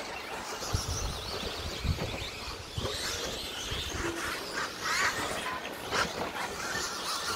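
Electric 1/10-scale 2wd stadium trucks racing on a dirt track: motors whining and tyres scrabbling on the dirt, with a few sharp knocks from landings and hits.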